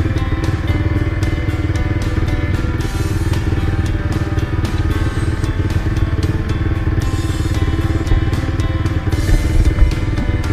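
Kawasaki KLX150 dirt bike's single-cylinder four-stroke engine running steadily.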